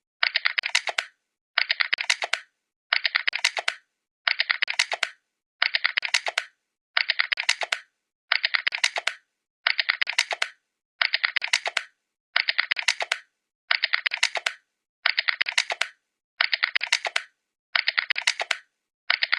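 Computer keyboard typing in short, evenly spaced bursts of rapid keystrokes, about one burst every second and a half, each ending with a sharper click.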